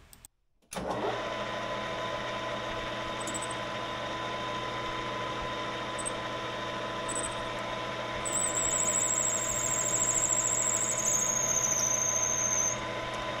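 Metal lathe switching on and running with a steady hum. A drill bit cuts a hole in a heat-treated steel differential cross pin, with a few short squeaks and then, from about eight seconds in, a high, wavering squeal that lasts about four seconds and stops.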